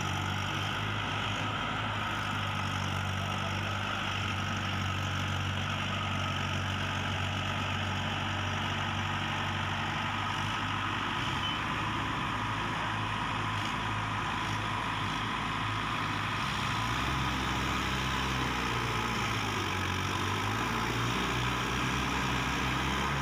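Mahindra 555 DI tractor's diesel engine running steadily while the tractor is stuck in deep mud. The engine note changes about two-thirds of the way through and runs a little louder after that.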